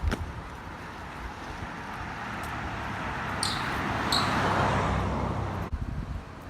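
A road vehicle passing, its noise swelling to a peak about four seconds in and then dying away, with two short clicks near the peak.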